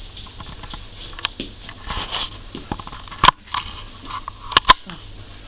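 Young working cocker spaniel puppies stirring in a whelping box: a scratchy patter of small claws and shuffling, with a few sharp clicks, the loudest about three seconds in and a quick pair near the end.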